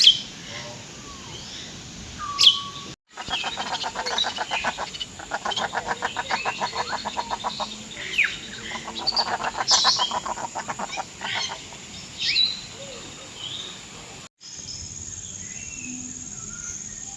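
Several birds calling: sharp whistles and chirps, with a fast rattling trill that runs for a few seconds, pauses, then comes again. The sound cuts out briefly about three seconds in and again near the end.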